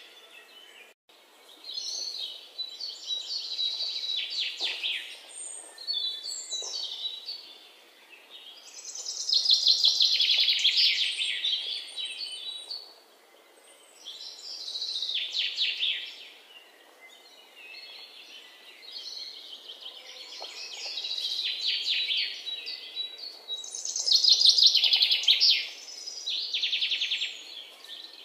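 Songbird singing: phrases of quick, high, rapidly repeated notes, a new phrase every few seconds, over a faint steady background hiss.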